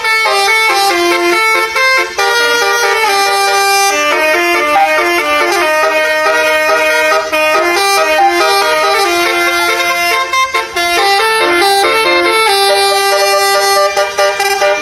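Telolet basuri multi-tone bus horn playing a melody: held horn notes that step up and down in pitch, one after another without pause.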